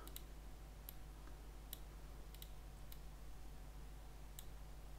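Scattered sharp clicks of a computer mouse, about eight in all, two of them in quick succession about two and a half seconds in, over a low steady hum.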